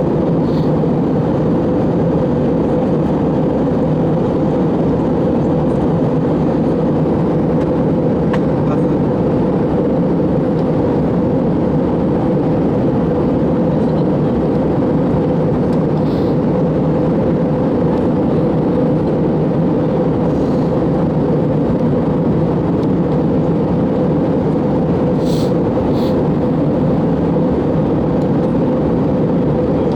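Steady cabin noise of an Airbus A321 in flight: the even rush of airflow and engines, with a steady hum running through it.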